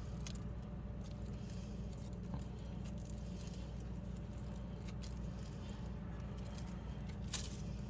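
Faint soft picking and scratching as the bread inside a bagel is pulled out by hand, with a few small clicks and one sharper click near the end, over a steady low hum.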